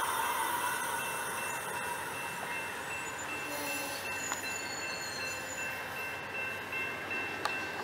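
Amtrak Superliner double-deck passenger cars rolling slowly past: a steady hiss of wheels on rail with a thin, high-pitched squeal, easing off a little over the first couple of seconds.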